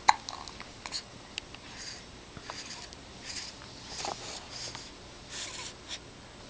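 A baby's soft snuffly breathing, a short faint puff every half second to a second, with a few small clicks in the first second and a half.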